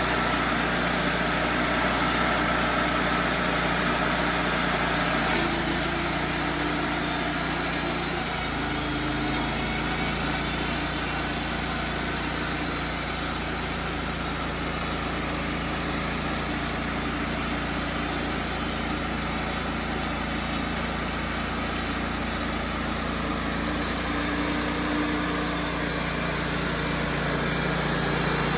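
An engine running steadily, its note shifting slightly about five and eight seconds in.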